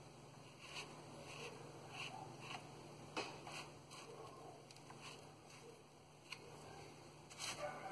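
Faint rustling and small clicks of fingers handling a pepper seedling and pressing potting substrate around its roots, a few slightly louder near the end, over a steady low hum.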